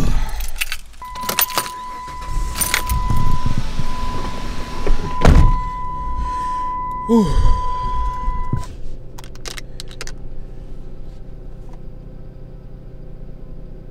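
Someone getting into a car: clicks and keys jangling, a steady electronic chime tone, and a heavy door thud about five seconds in. About seven seconds in the engine starts with a falling whir and settles into a steady idle.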